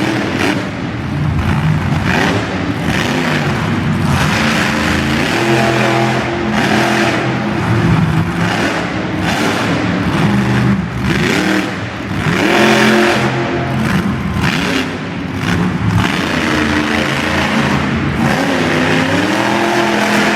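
Monster truck engine revving hard and repeatedly, its pitch climbing and dropping every second or two as the throttle is opened and eased off.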